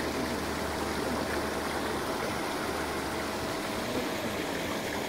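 Steady rushing and splashing water from a pond aerator, with a faint steady hum underneath.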